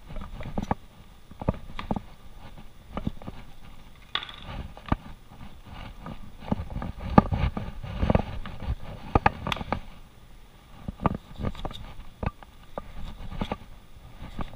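Chef's knife trimming fat from New York strip steaks on a plastic cutting board: irregular taps and knocks of the blade on the board, with thuds and slaps of raw steaks being handled and set down, busiest about halfway through.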